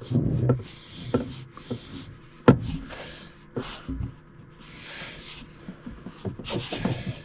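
Hands fitting and tightening faucet water-line connections under a sink: scattered knocks and clicks of the fittings against the cabinet and pipes, with rubbing and rustling, and one sharp knock about two and a half seconds in.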